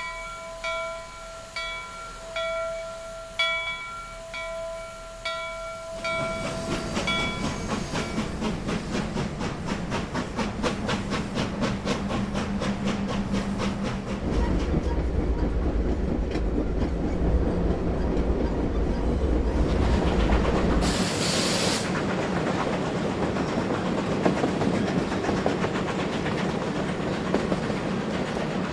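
A train passing: a fast, even clicking of wheels over rail joints builds over a deeper rumble. For the first six seconds a ringing tone repeats about twice a second, and a short hiss comes near the end.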